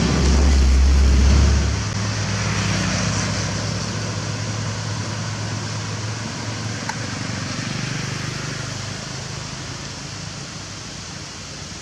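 Diesel engine of an Isuzu Giga self-loader truck running as it drives away, fading gradually, with motorcycles passing close by. A loud deep hum drops off about two seconds in.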